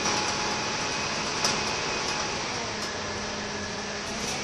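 Inside a Scania K230UB Alexander Dennis Enviro 300 single-deck bus on the move: steady diesel engine and road noise. A single sharp knock comes about a second and a half in.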